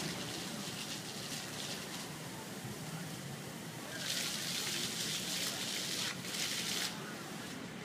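Ground-level splash-pad fountain jets switching on about four seconds in: a hiss of spraying water splashing onto wet pavement, breaking off briefly and starting again, then falling back near the end.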